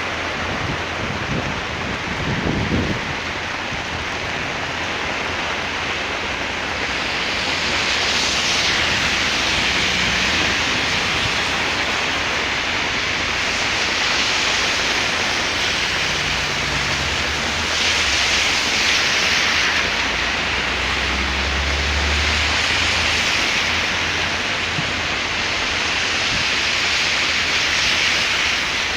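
Heavy rain falling steadily, a dense hiss that swells louder several times. A low rumble runs underneath from about sixteen to twenty-three seconds in.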